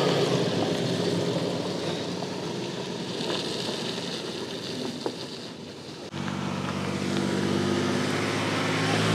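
Ford Ranger pickup's engine running at low, steady revs while driving slowly over rough off-road ground. The sound changes abruptly about six seconds in, after which a steady engine drone is louder.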